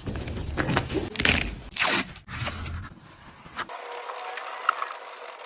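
Oil pastel scraping and rubbing across paper in irregular strokes, the loudest just before two seconds in. About three and a half seconds in, the sound cuts to a quieter, thinner rubbing over a steady hiss.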